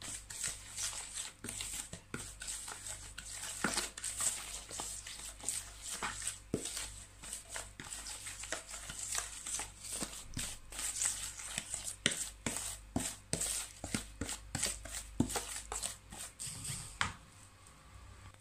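Wooden spoon stirring an olive-oil and spice marinade in a plastic bowl: an irregular run of scrapes and knocks against the bowl, several a second.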